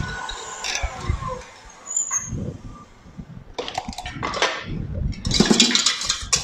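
Wire whisk scraping and clicking rapidly against a stainless-steel mixing bowl as meringue is stirred. It starts with scattered knocks about three and a half seconds in and becomes a dense, steady scraping near the end.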